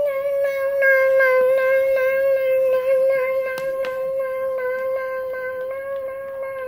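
A steady electronic warning tone with quick ticks over it, about four a second, like a railroad-crossing signal sound effect. It starts suddenly, fades slightly, and cuts off.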